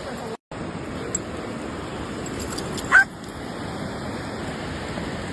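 A dog gives one short, high yelp about three seconds in, over the steady wash of surf.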